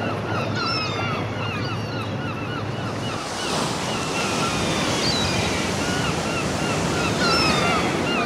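Sea waves washing on the shore, with wind. The surf swells louder about three seconds in. Short, high calls repeat over it several times a second.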